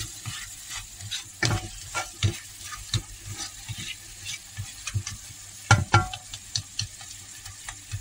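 Spatula scraping and tapping against a frying pan as minced cow brain is stirred and mashed in sizzling desi ghee. The scrapes come irregularly over a steady sizzle, with a couple of louder knocks about six seconds in.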